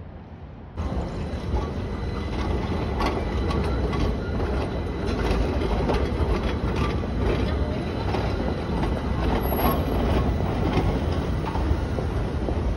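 A city tram running past on street rails, its wheels clattering over the track with short squeals. The sound starts suddenly about a second in.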